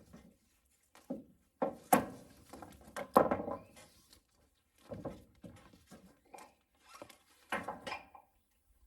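Irregular knocks and clunks, some with a short ring after them, the loudest two about two and three seconds in.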